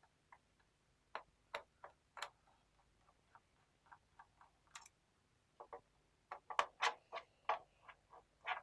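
Irregular small clicks and ticks of a screwdriver working the screws out of a laptop's plastic bottom cover, coming thicker and louder in the second half.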